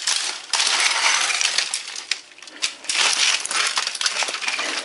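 The shattered Compaq Presario F500 laptop's sheet-metal shielding and plastic casing crunching, crackling and clinking as they are wrenched and pried apart by hand and with a claw hammer to work the CD drive loose. A short lull comes a little past two seconds in.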